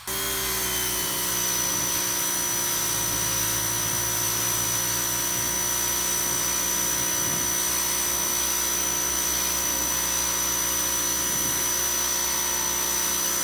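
Pressure washer running steadily while spraying rubber mats: a constant motor and pump hum with a high whine over the hiss of the water jet.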